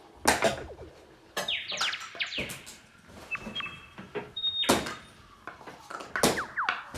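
Free noise improvisation: sparse knocks and hits on assorted objects, a second or more apart, several followed by quick tones that fall in pitch, with a couple of brief high steady tones in the middle.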